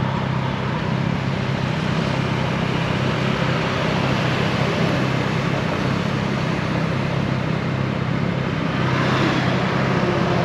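Motorcycle riding along a road at steady speed: engine running under wind and road noise, getting a little louder about nine seconds in.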